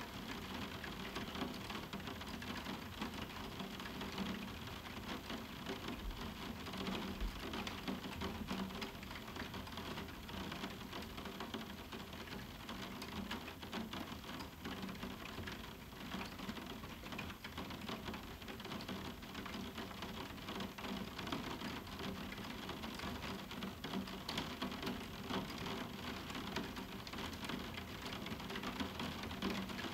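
Moderate summer rain falling steadily on a roof window, a dense, even run of small drop ticks with no thunder.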